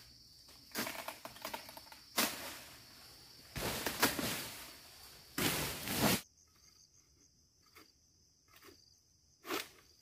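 Egrek, a long-pole sickle, being worked through oil palm fronds and fruit-bunch stalks: four noisy bursts of a second or so in the first six seconds, then only faint scattered clicks and one short burst near the end. A steady high insect drone runs underneath.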